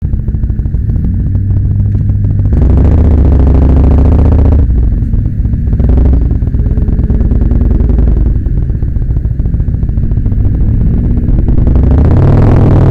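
Kawasaki Vulcan 1600 Nomad's V-twin engine idling, then opened up as the bike pulls away. The throttle comes on a couple of seconds in, eases off, comes on again, and the engine swells once more near the end.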